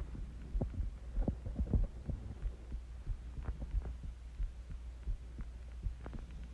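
A person's heartbeat recorded up close: soft low thumps over a steady low hum, with a few sharper clicks among them.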